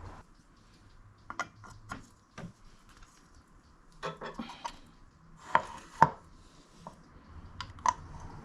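Small metal motorcycle parts and tools being handled and set down on a work surface: scattered clinks and knocks, a cluster about halfway through, with the loudest pair of knocks shortly after.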